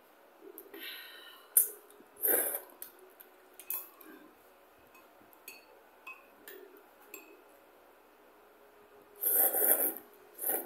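Instant curry noodles being slurped and eaten, in several short loud slurps with sharp clicks of chopsticks and a spoon against bowls in between. Near the end comes the longest, loudest slurp as broth is drunk from a tipped-up bowl.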